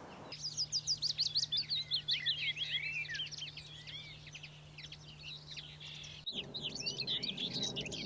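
Woodland songbird chorus in spring, several birds singing at once with quick, high, slurred notes, busiest in the first three seconds. The song breaks off abruptly about six seconds in and carries on straight after over a slightly different background.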